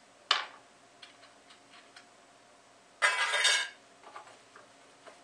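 Small metal bolts being handled in a clear plastic bag. There is a sharp click under a second in, a few light ticks, then a half-second crinkle and rattle of the bag about three seconds in, followed by a few more small clicks.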